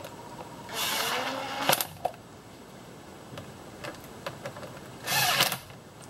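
Cordless power driver spinning in two short runs, about a second long and then about half a second, tightening hose clamps on the engine's intake air duct, with a sharp click at the end of the first run.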